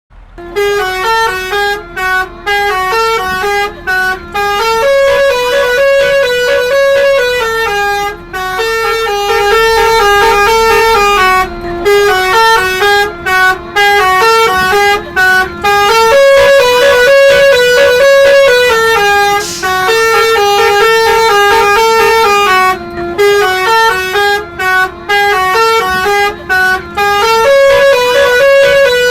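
Basuri-type telolet bus horn, a multi-note musical air horn, playing a tune of short notes that step up and down, with brief breaks between phrases.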